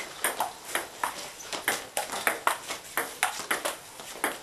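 Table tennis rally: a ping-pong ball hit quickly back and forth, its clicks on the paddles and bounces on the table coming about three to four a second.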